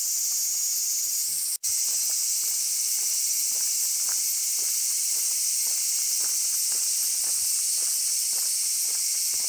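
A chorus of higurashi (evening cicadas) singing in a steady, high-pitched shrill that cuts out for an instant about one and a half seconds in. Faint footsteps sound underneath.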